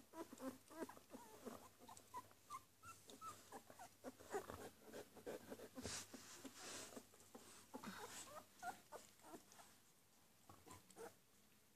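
Two-week-old puppies squeaking and whimpering: a quick string of short, high little cries, thinning out near the end.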